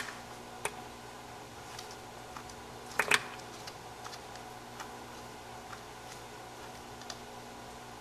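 Scattered light clicks and taps, with a short cluster of louder knocks about three seconds in: eastern Japanese common toads snapping at mealworms and bumping against the plastic feeding dish. A faint steady hum lies underneath.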